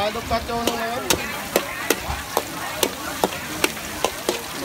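Sharp taps, about two a second, over a steady sizzling hiss: the sound of food being cooked and stirred.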